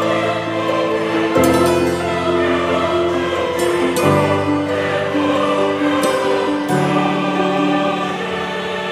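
Background music of choir-like singing over sustained chords, the chord changing about every two and a half seconds.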